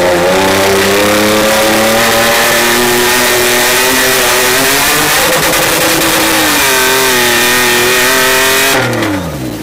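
Off-road 4x4 vehicle's engine running loud at high revs, held fairly steady with a brief dip about halfway through, then the revs falling away near the end.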